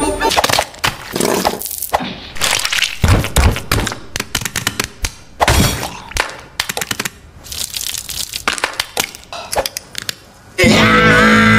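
Food cracking and crunching in a quick, irregular run of cracks and thuds. Music with held notes comes in near the end.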